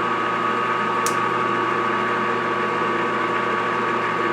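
Metal lathe running steadily: an even motor and gear hum with a constant whine, and one light click about a second in.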